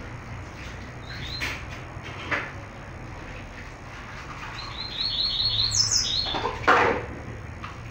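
Caged papa-capim seedeaters chirping: a short call about a second in, then a quick run of short, dropping chip notes with a high thin note just past the middle. A sudden louder knock or rustle comes near the end, over a steady low hum.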